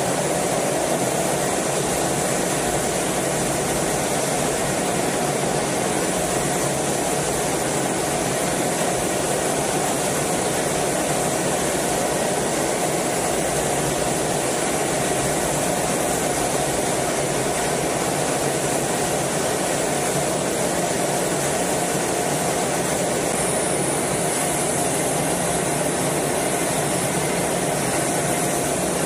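Steady jet fighter cockpit noise: engine and rushing air in a constant, unbroken roar with a strong hiss.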